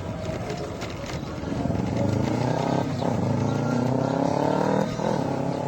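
A vehicle engine accelerating: its pitch rises steadily, drops about three seconds in as it shifts gear, then rises again and drops once more near the end.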